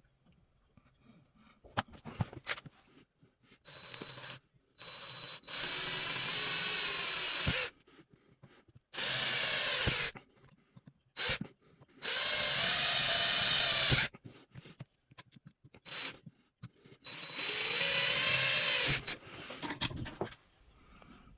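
Small electric power tool run in five short bursts of about one to three seconds each. Within each burst the motor's pitch rises and falls as it works the metal, and there are a few clicks between the bursts.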